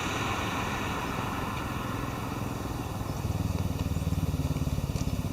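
An engine idling with a fast, even low pulse, which gets louder about three seconds in.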